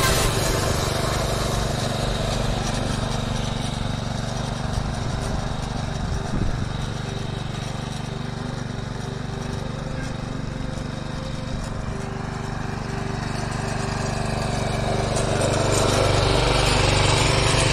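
A walk-behind power tiller's small engine running steadily. It grows a little quieter in the middle and louder again near the end.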